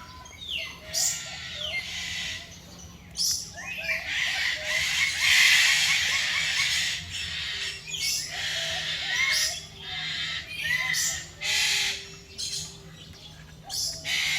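Birds calling: harsh squawks repeated every second or two, loudest about five to six seconds in, with smaller chirps between them.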